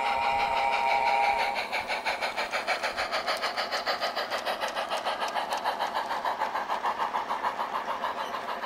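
Garden-scale model steam locomotive chuffing in a quick, even beat as it runs along the track. A steady whistle tone sounds over the chuffs for about the first second and a half.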